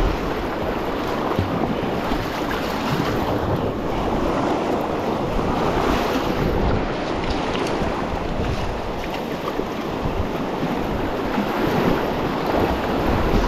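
River rapids: whitewater rushing and churning around a kayak in a steady, even roar.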